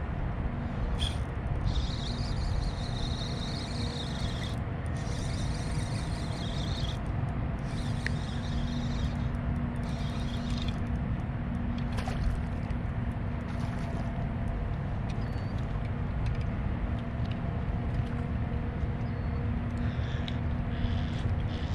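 Wind rumbling on the camera microphone over the faint, steady hum of a boat motor.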